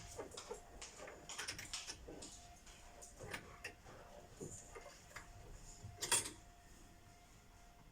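Irregular light clicks and scrapes of metal tool pipe sections being handled, twisted and fitted together, with one sharper knock about six seconds in.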